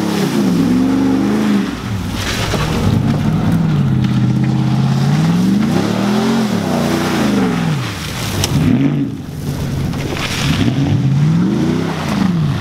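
Lifted pickup trucks driving hard through mud, their engines revving up and down again and again. Tyres churn and mud sprays in places.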